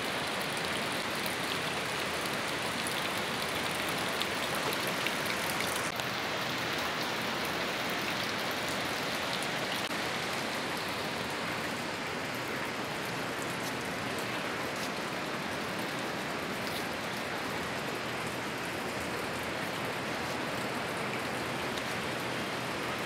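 Steady, even rush of a fast-flowing mountain river, an unbroken noise that neither rises nor falls.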